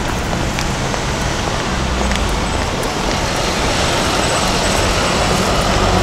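Steady city street traffic at a busy intersection: a dense wash of car and taxi engines and tyres, with a low engine hum from a vehicle passing close about two seconds in.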